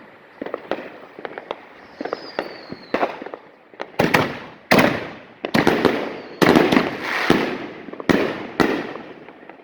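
Consumer fireworks going off. Scattered crackling comes first, then a short falling whistle, then a rapid run of about eight loud bangs over the second half.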